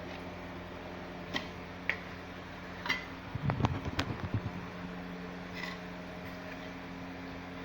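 Steady low mechanical hum, like a dehumidifier running, with a few light clicks and, about three and a half seconds in, a brief cluster of knocks and clatter as filler is worked with hand tools and a bucket.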